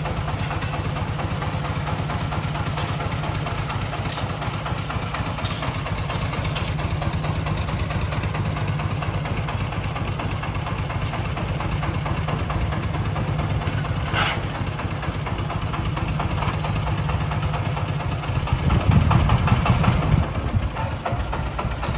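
Công nông farm truck's single-cylinder diesel engine idling steadily, with a few sharp clinks in the first half, matching a shovel striking. About nineteen seconds in, the engine revs up louder for a second or so.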